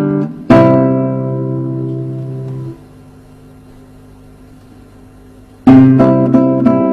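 Classical guitar played fingerstyle: an arpeggio exercise ends on a chord, struck about half a second in, which rings for about two seconds and is then stopped short. After a pause of about three seconds, a new broken-chord pattern of evenly plucked notes begins near the end.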